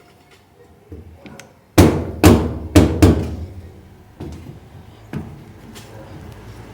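Four loud, sharp knocks in quick succession about two seconds in, each ringing briefly, then two lighter knocks: a washing machine's cabinet and parts being knocked as its retaining clips are worked loose during disassembly.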